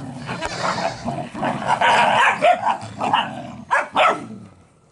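Several puppies bark and yap over one another while they play-fight to sort out dominance. Two sharp, loud barks come near the end, then the noise dies down.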